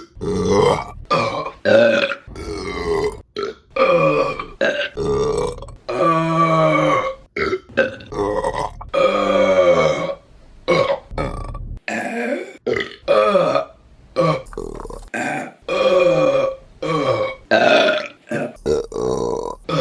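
A rapid run of women's burps, one after another with abrupt cuts between them. Most are short, with a few long, drawn-out ones in the middle.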